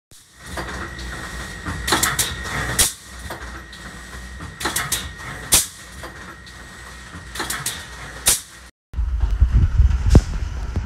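Plastic-bottle production machinery running: a steady low hum broken by clusters of sharp mechanical clacks every two to three seconds as the machine cycles. After a brief cut near the end, a louder and heavier machine rumble follows.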